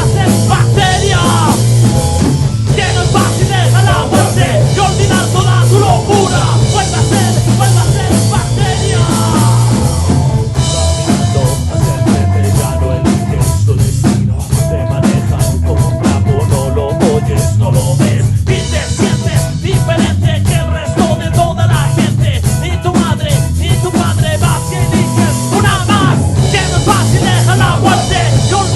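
Rock band playing a song live at rehearsal, heard through a room microphone rather than a mixed recording: a drum kit and heavy bass under the band, with singing at times.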